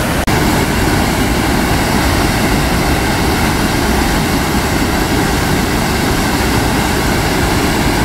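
Devil's Kettle waterfall on the Brule River, a steady loud roar of falling water, broken by a brief dropout just after the start.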